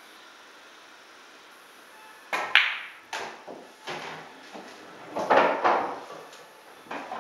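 Pool shot: the cue tip clicks on the cue ball, which strikes the black ball with a sharp clack about two and a half seconds in. Several knocks and rattles of the balls follow as the black ball drops into a side pocket and the cue ball comes off the cushion, with the loudest rattle about five seconds in.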